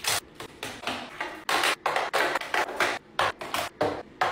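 Makeup items being put into a drawer one after another: a quick, irregular run of clicks, taps and knocks as containers are set down against each other, a few each second.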